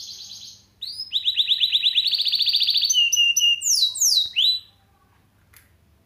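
Mozken, a yellow-fronted canary × domestic canary hybrid, singing canary-style song. A short high trill is followed by a long run of fast, evenly repeated notes, then a few lower steady notes and several quick descending whistles before the song stops.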